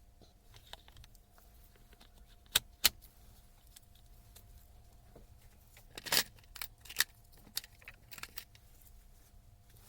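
Scattered metallic clicks and clinks of small metal parts or tools being handled: two sharp clicks a few seconds in, then a run of clinks a little later, over a faint steady hum.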